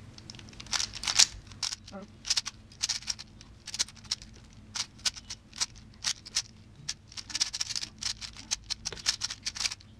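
MoFang JiaoShi MF3RS2 3x3 speed cube turned quickly during a solve: a fast, irregular run of plastic clicks and clacks as the layers turn.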